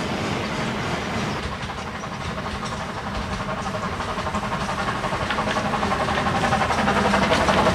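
Double-headed narrow-gauge steam train approaching, two small steam tank engines working up the line with rapid exhaust beats and rail clatter that grow steadily louder.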